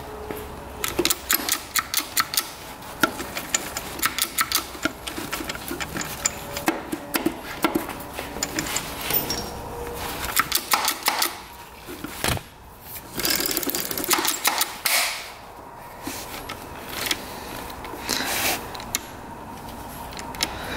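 Metal clicks and clacks of a Honda CR125 gearbox's exposed shift mechanism being worked by hand: the shift drum and shift pawls ratcheting in irregular clusters as the shifter is moved through the gears. It is a test of a gearbox that will not shift out of third gear, where a shift part catches on a piece of metal that the owner thinks was installed the wrong way round.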